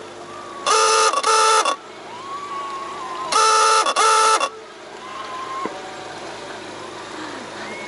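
A boat's horn sounding two pairs of short blasts, one pair about a second in and another about three and a half seconds in, each blast a steady single-pitched tone.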